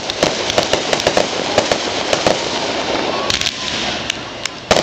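Aerial fireworks crackling: a dense run of sharp, irregular pops from a gold burst, with a louder bang near the end.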